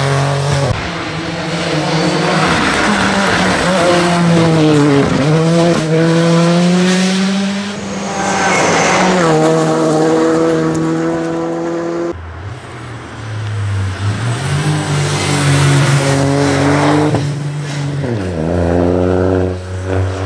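Rally car engines revving hard as the cars pass at stage speed. The pitch drops on lifts and downshifts and climbs again under acceleration, and a different car takes over abruptly about twelve seconds in.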